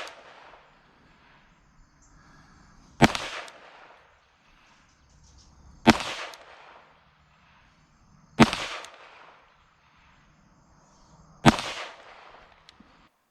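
Smith & Wesson M&P 2.0 semi-automatic pistol firing .22 WMR (22 Magnum) rounds slowly and deliberately. There are four sharp shots roughly three seconds apart, each followed by a short echoing tail.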